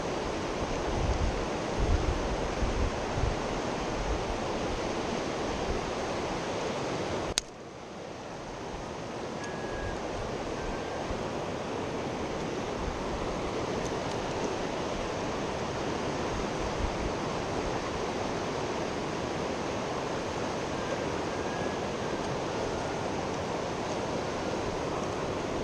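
Steady rush of a mountain river's flowing water, with wind buffeting the microphone in the first few seconds. A single sharp click comes about seven seconds in, and the water sound is briefly quieter after it.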